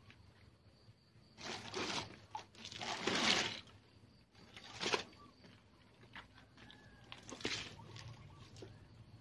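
Tobacco-soaked water poured from a basin into and around a plant pot, splashing in four short bursts, the loudest about three seconds in.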